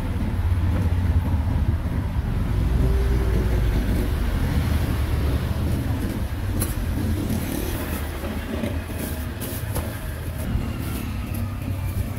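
Road traffic passing close by, a steady low engine rumble that swells a few seconds in and eases later.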